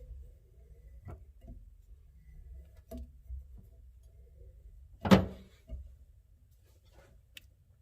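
Wrench work on brass air-line fittings: a few light clicks and knocks of the tool, and one loud sharp knock about five seconds in.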